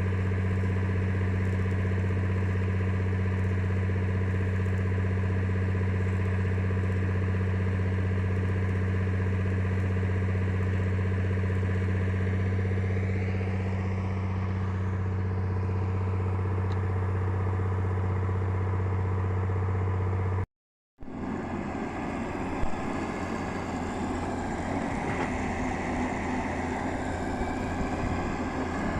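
An engine running steadily with a constant low hum. About two-thirds through, the sound drops out for a moment and returns as a rougher, noisier machine sound.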